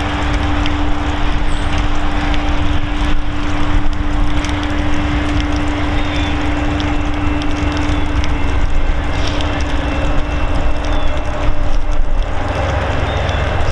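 VIA Rail GE P42DC diesel locomotive approaching at speed with its passenger train: a steady engine drone and low rumble, with a sustained tone that fades about two thirds of the way through.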